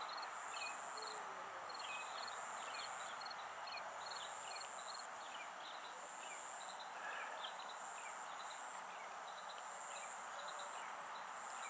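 Outdoor ambience of insects: a steady high buzzing trill that swells and fades, with rows of short rapid ticks and scattered faint chirps over a soft background hiss.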